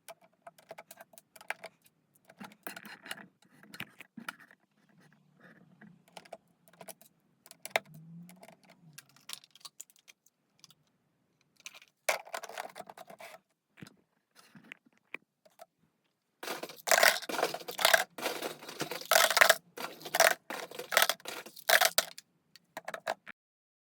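Lego plastic parts clicking and rattling as they are handled and fitted together, with scattered single clicks at first. Then a few seconds of louder, busier rattling and clattering about two-thirds of the way through.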